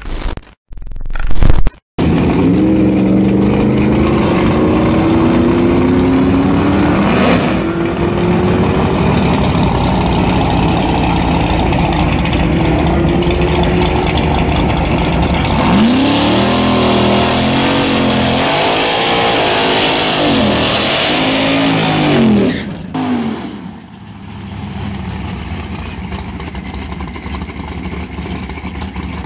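ProCharger-supercharged drag truck's engine held at high revs through a burnout, its pitch climbing steadily, then revved up and down in quick swells. About three-quarters of the way through it drops suddenly to a quieter, steady run for the last few seconds.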